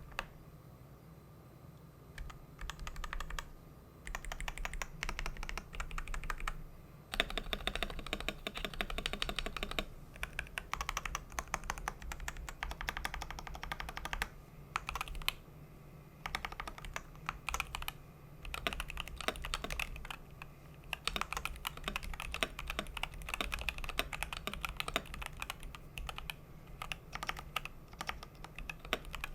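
Typing sound test on a CiY Tester 68 65% mechanical keyboard fitted with NovelKey NK Silk Oblivion switches and DCS-profile keycaps: quick runs of clacking keystrokes, broken by a few short pauses.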